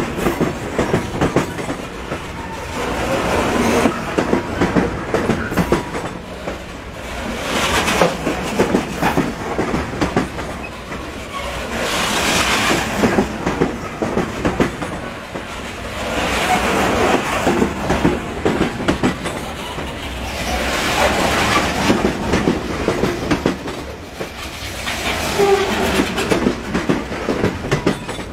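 Train wheels clattering over rail joints, a dense clickety-clack that swells and eases every four seconds or so.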